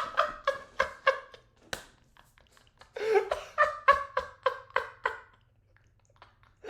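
A man laughing hard in rhythmic ha-ha pulses, about three a second: one bout trails off in the first second and a half, and a second bout runs from about three to five seconds in.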